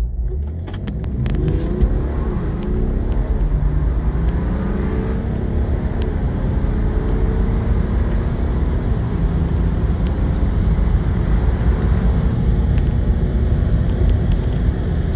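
Car engine accelerating hard from a standstill, heard from inside the cabin, with the engine pitch rising and shifting through the gears.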